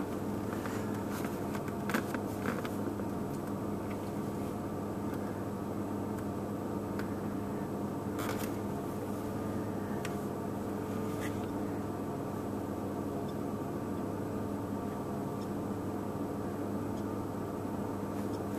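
Steady mechanical hum of a running motor, holding several tones without change, with a few faint clicks.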